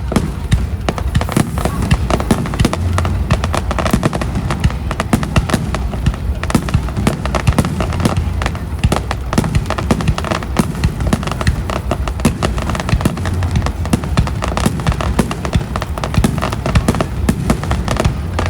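Aerial fireworks bursting in a dense, continuous barrage: many rapid bangs and crackles over a deep rumble, with no pause between them.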